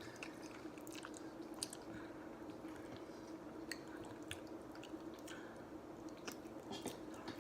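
Close-miked chewing of shrimp Alfredo pasta: soft wet mouth sounds and small clicks, over a faint steady hum.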